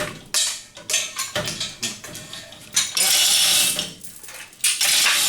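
Metal tools and engine parts clanking and knocking. There are two loud bursts of hissing, one about a second long near the middle and a shorter one near the end.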